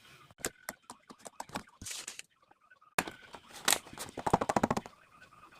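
Slime being squeezed and poked, making a run of irregular clicks and pops; a second, denser and louder run starts about three seconds in.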